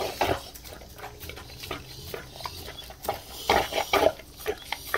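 Dog eating chunks of meat from a ceramic bowl: chewing and smacking in irregular bursts, heaviest just after the start and again about three and a half seconds in.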